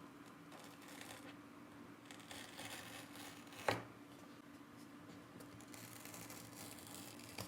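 Faint peeling and tearing of the seal sticker on a Google Pixel 8 Pro phone box, with one short click about halfway through.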